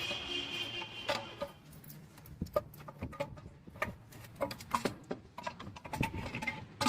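Irregular metallic clicks and knocks of hand tools and bolts while the timing cover plate is worked off the engine.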